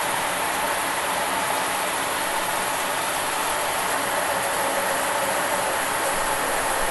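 Shower running: a steady hiss of water spray falling.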